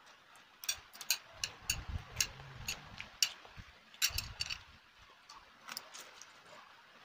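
Close-miked eating sounds of instant fried noodles: wet chewing and lip smacks heard as a quick run of sharp clicks, several a second, with brief slurps. The clicks thin out near the end.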